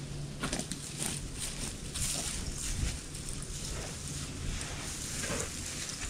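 Footsteps crunching and rustling through dry fallen leaves and gravel, in irregular short strokes over a low steady rumble.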